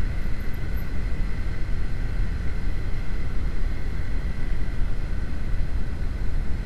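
Steady low rumble of riding wind on an action camera's microphone, with a Honda CB150R's single-cylinder engine running underneath while the motorcycle rides along in traffic.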